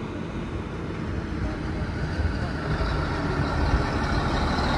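Diesel engine of a fire-department tanker truck running as the truck rolls slowly toward the listener, growing steadily louder.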